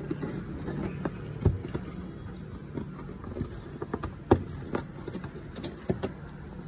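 Fingers pushing a thin dash cam cable into the gap along a car's fabric headliner: irregular light taps, clicks and rustling, the sharpest click about four seconds in.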